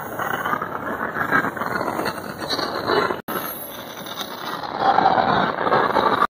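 Empty iron ore gondola wagons rolling past on curved track: steady wheel and rail rumble with squealing wheel flanges, loudest near the end. There is a brief break in the sound about three seconds in.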